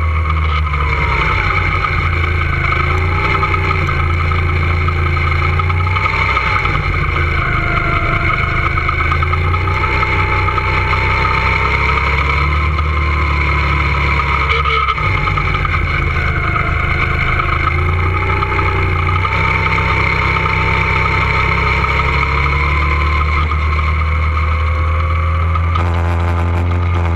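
Two-seater go-kart's motor running hard under load, its pitch repeatedly rising and falling as the kart speeds up on the straights and slows for the corners, over a steady low rumble.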